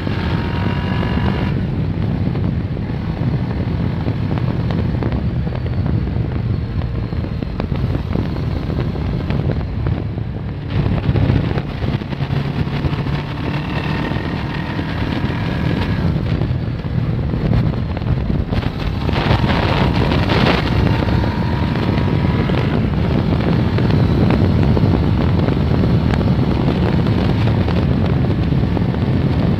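Kawasaki ER-6n's 650 cc parallel-twin engine running while riding, under heavy wind rumble on the microphone. The engine note rises in pitch at the start and again about two-thirds of the way in as it accelerates.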